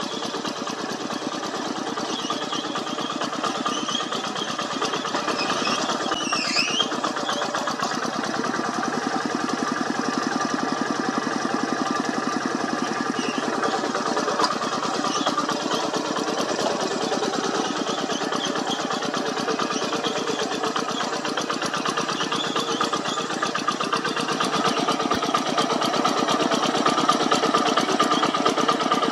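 Diesel engine of a two-wheel hand tractor running steadily while pulling a plough through soil, growing somewhat louder near the end.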